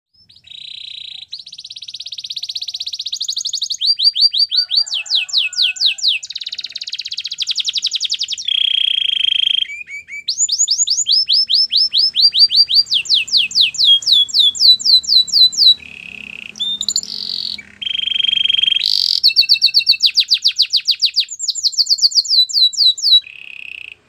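Canary singing an unbroken song: buzzy trills alternating with rapid runs of falling notes, changing phrase every second or two.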